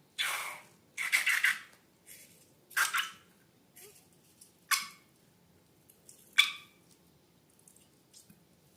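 Slime and balloons being handled, giving a series of short, irregular sticky squishing and crackling sounds, about five in eight seconds.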